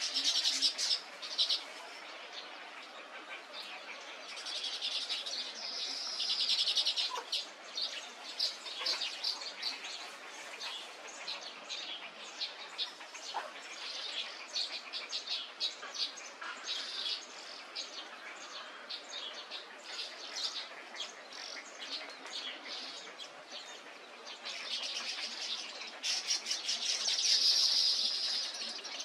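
Many birds chirping and chattering together in a dense, continuous run of short high calls, swelling louder twice.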